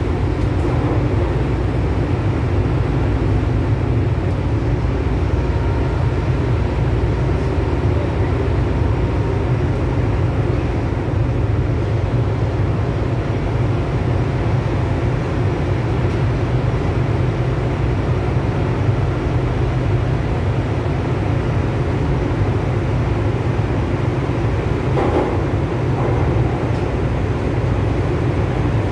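Steady rumble of an MTR M-Train (Metro-Cammell metro car) running through a tunnel, heard inside the passenger car: the deep noise of wheels on rails and running gear, with a faint hum over it.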